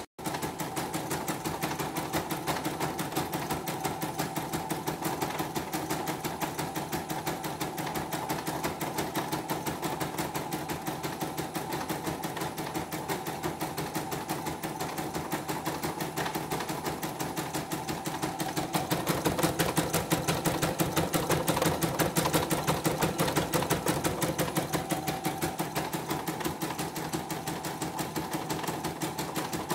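CNY computerized embroidery machine stitching out a test design at speed, a rapid steady rattle of needle strokes. It gets somewhat louder for a few seconds past the middle.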